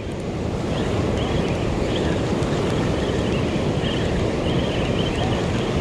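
Surf breaking and washing over a rocky shore in a steady rush, with wind buffeting the microphone.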